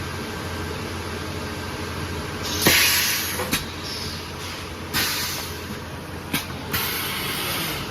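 Automatic high-frequency insole welding machine running with a steady low hum, its pneumatic press letting out three bursts of air hiss, each starting with a sharp click.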